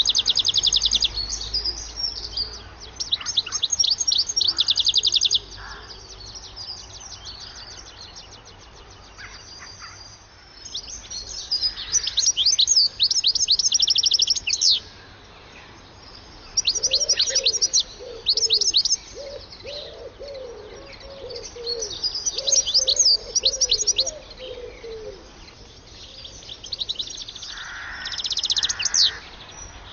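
European goldfinch singing: bursts of fast, high twittering, each a few seconds long, separated by quieter pauses. A fainter, lower broken warbling runs underneath for several seconds in the middle.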